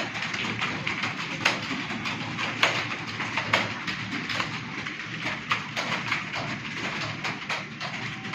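Computer keyboard being typed on quickly: a continuous run of irregular key clicks, several a second, with a few louder strokes standing out.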